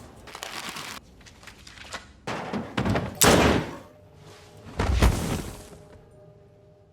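Heavy slamming thuds with a long reverberant ring-out, the loudest about three seconds in and a second one about five seconds in, after softer knocks. A faint steady hum fades out near the end.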